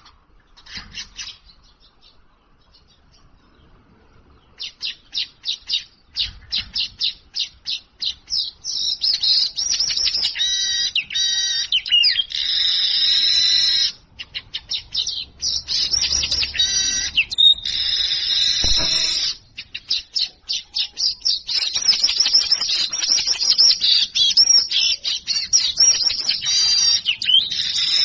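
Weaver bird (manyar) singing: a run of short, sharp chirps that speeds up into a continuous buzzy, chattering song, broken by two brief pauses.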